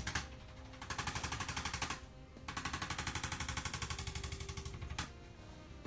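A handheld percussion device, such as a massage gun or chiropractic adjusting instrument, hammering rapidly on the back muscles. It goes in runs of fast, even taps: a brief one at the start, one of about a second, then a longer one of over two seconds, followed by a single click near the end.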